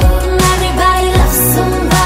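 Background pop/R&B song with a steady beat and deep kick drum.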